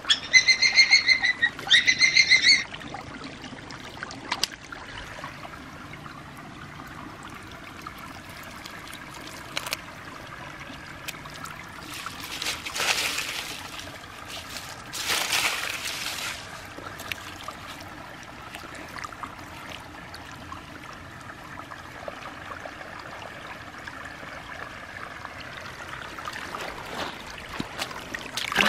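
Small stream trickling steadily, with hands squelching and scraping in wet mud and leaves twice about halfway through while digging out a muddy toy. Two short, loud, high warbling tones sound just at the start.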